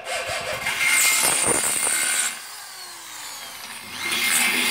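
Corded electric drill boring into a white metal frame tube, the bit grinding through the metal. It is loudest from about one second in, eases off a little past two seconds, and bears down again near the end.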